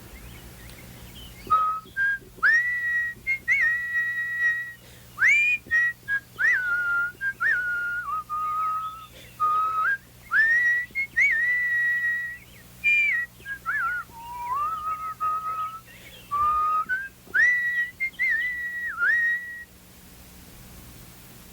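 A person whistling a warbling birdsong imitation of the mechanical nightingale's song: short held notes linked by quick slides up and down. It starts about a second and a half in and stops shortly before the end.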